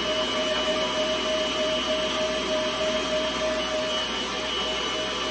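Electric stand mixer motor running steadily with a constant whine as its beater whips eggs in a stainless steel bowl.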